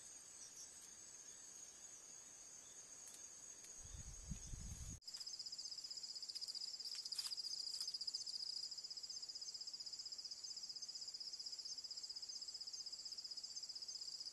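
Night insects chirring in a steady high trill; about five seconds in it changes to a lower, louder, pulsing trill. A brief low rumble comes just before the change.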